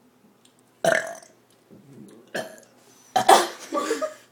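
Deliberate burps, one after another: a short burp about a second in, another brief one about two and a half seconds in, then a longer, louder burp just after three seconds.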